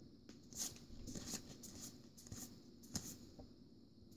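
Faint rustling and soft ticks of Pokémon trading cards being handled and slid against one another, a few light scratches spaced irregularly.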